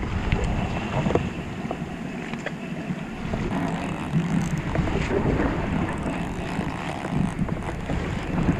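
Wind buffeting the microphone over the wash of sea water and the running of a boat, with a few faint ticks; the low rumble eases about a second in and builds again from about three and a half seconds.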